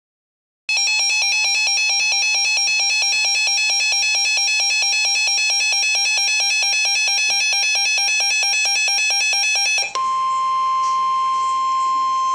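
Emergency Alert System attention signal: a loud, harsh two-tone alarm warbling rapidly, starting about a second in. Near the end it switches abruptly to a single steady high tone.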